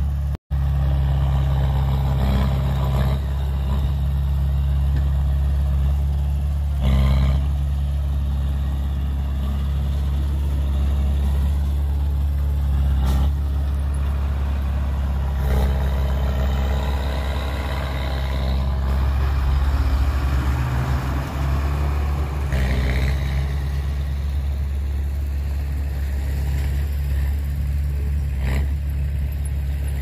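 Heavy diesel engines of a dump truck and a small crawler bulldozer running steadily at low speed, a continuous low drone with a few scattered clanks and knocks.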